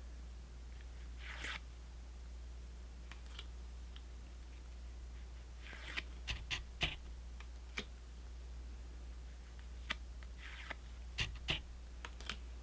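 Trading cards and foil pack wrapper being handled: a few short rustling swishes and scattered light clicks and taps, over a steady low hum.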